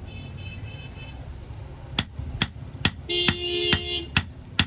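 Blacksmith's hand hammer striking metal in a steady rhythm, about two to three blows a second, starting about halfway through. A steady pitched tone sounds for about a second over the blows.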